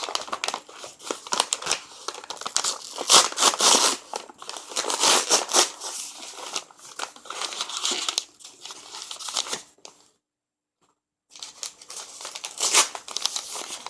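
Packaging being crinkled and torn by hand as a shipped potted plant is unwrapped: irregular, dense crackling and rustling. It cuts out completely for about a second near the ten-second mark, then resumes.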